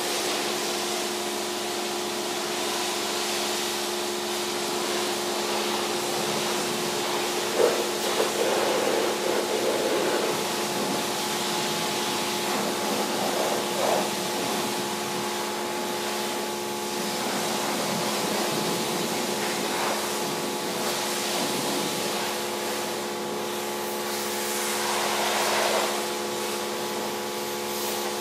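Pressure washer running steadily, with a constant motor hum under the hiss of its jet rinsing snow foam off a car's paintwork. The hiss swells for a moment a few times as the spray strikes the panels and wheel.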